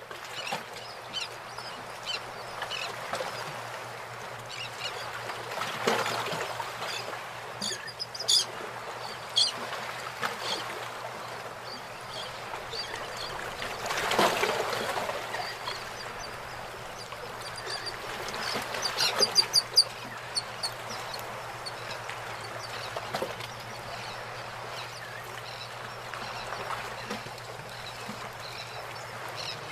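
Outdoor nature ambience: a steady background hiss with a low hum, and scattered bird calls. The loudest is a quick run of short calls about two-thirds of the way through.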